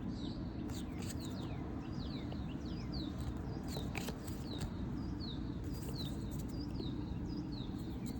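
A bird chirping over and over, short notes sliding downward in pitch at about two a second, over a steady low background rumble.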